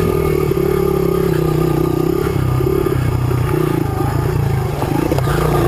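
Engine of a 2005 Honda CRF100 trail bike, a small air-cooled single-cylinder four-stroke, running at low revs with the engine note wavering up and down as the throttle is worked over rocky single track.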